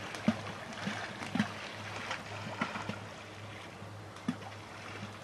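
Irregular soft knocks and taps from an angler handling his gear at the fishing peg, over a steady low hum and outdoor water-side ambience.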